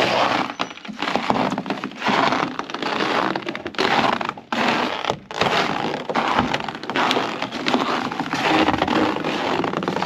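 Boots crunching on dry snow over a wooden deck, a steady run of steps about one a second, each a loud crackling crunch. Snow that crunches this loudly underfoot is the sign of bitter cold, here about −41 °C.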